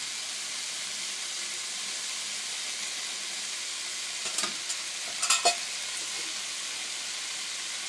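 Diced pumpkin with onions and spices sizzling gently in a non-stick pan over low heat, a steady hiss. A wooden spoon scrapes and knocks against the pan a few times around the middle, loudest a little past halfway.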